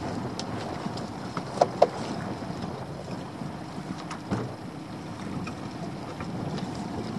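Steady wind and water noise around a small open boat at its mooring. Two short, sharp knocks come close together about two seconds in, and a fainter one a little after four seconds.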